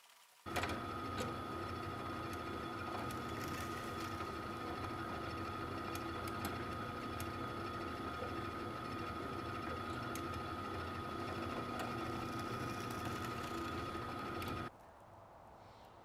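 Benchtop drill press motor running with a steady whine while drilling a hole through a leather belt strap. It starts abruptly about half a second in and cuts off near the end.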